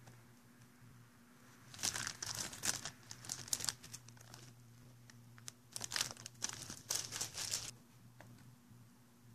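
Clear plastic parts bag crinkling in gloved hands, in two spells of rustling: one starting about two seconds in, another just past the middle.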